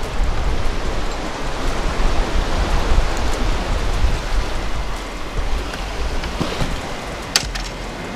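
Wind buffeting the microphone with a heavy low rumble over a steady wash of surf and open water. A single sharp click comes near the end.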